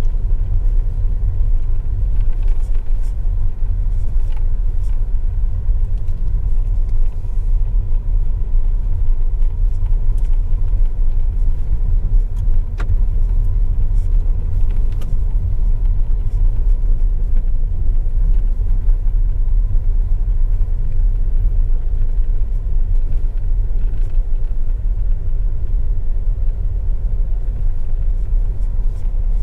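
Steady low rumble of a Ford EcoSport on the move, engine and road noise, with a few faint clicks.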